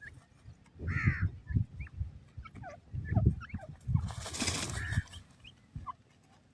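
Francolin chicks peeping with many short falling cheeps, and a louder call from the hen about a second in. Low thumps come in among the calls, and there is a rustling burst about four seconds in.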